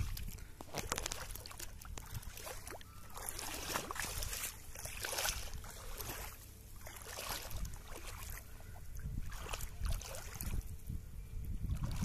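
Irregular splashing and sloshing of muddy water as a pair of bullocks wade and drag a wooden plough through a flooded paddy field.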